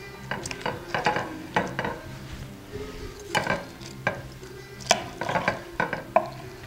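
Knife cutting through a roast chicken's crisp skin and leg joint on a platter: irregular crackles and clicks, with the blade now and then knocking against the plate.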